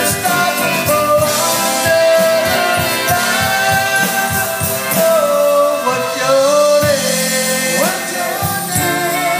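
Live band playing, with a horn section of trumpets and saxophone carrying held melody lines that slide in pitch, over a steady drum-kit beat, bass and electric guitar.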